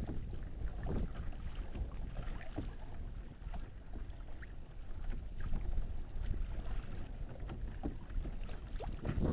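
Water lapping and splashing lightly against a Hobie Outback kayak's hull, with small scattered ticks, over a steady low rumble of wind on the microphone.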